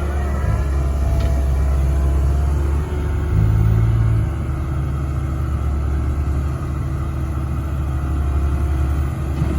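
Komatsu PC130 hydraulic excavator's diesel engine running at work with a steady low rumble, briefly louder and deeper about three and a half seconds in.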